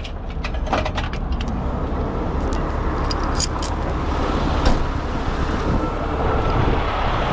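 Steel transfer chain clinking and rattling as it is handled, with several sharp clinks, over the steady low rumble of a heavy tow truck's diesel engine idling.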